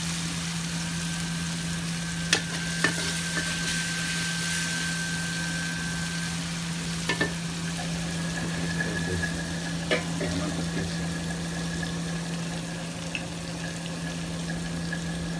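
Red spice paste sizzling as it is stir-fried in a steel wok, with a few sharp clinks of the metal spatula against the pan over a steady low hum.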